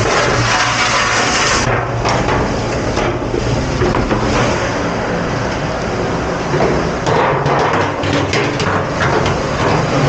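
Steady loud mechanical noise with a low hum, overlaid by clattering knocks, with a quick run of them about seven to eight and a half seconds in.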